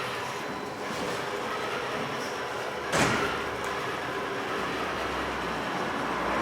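Radio-controlled model construction machines running: a steady mechanical whirring and clatter, with one sharp knock about three seconds in.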